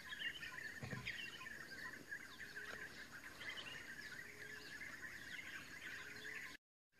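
Faint early-morning chorus of small birds, many short high chirps overlapping with no single call standing out, with a soft low thump about a second in. The sound cuts off abruptly just before the end.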